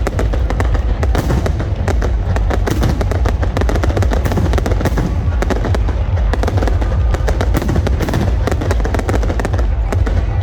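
Aerial fireworks going off in rapid, dense succession: many sharp bangs and crackles over a steady low rumble.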